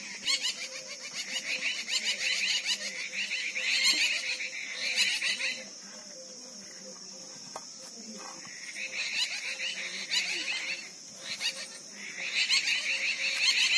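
Outdoor insect chorus: a steady high drone with three loud bouts of fast, rattling calls lasting a few seconds each.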